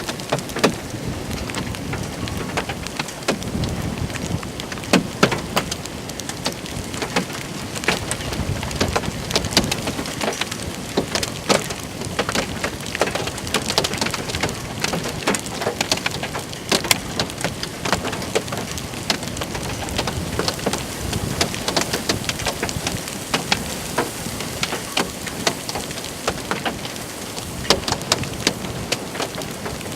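Heavy thunderstorm rain pouring down, a steady hiss with many sharp, close drop impacts on a hard surface.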